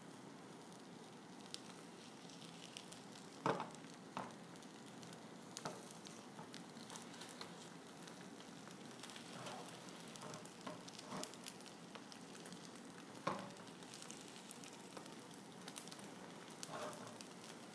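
Egg omelet faintly sizzling in a nonstick frying pan over low heat, with occasional short knocks and scrapes of a silicone spatula against the pan. The clearest knocks come about three and a half seconds and about thirteen seconds in.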